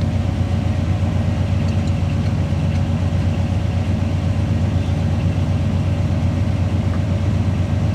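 1981 Chevrolet Silverado pickup's Quadrajet-carbureted engine idling steadily at operating temperature, with a steady mid-pitched hum over the engine's even low pulse.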